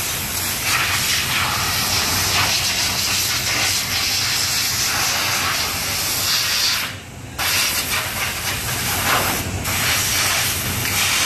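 Compressed-air blow gun hissing as it blows water off a washed motorcycle, with a short break about seven seconds in and a brief dip a couple of seconds later.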